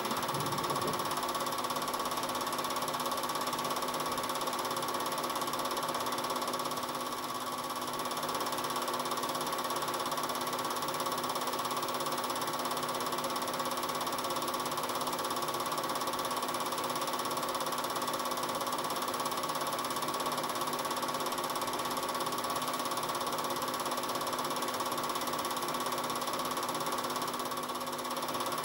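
Cine film projector running: a steady mechanical whirr and fine clatter with a constant hum.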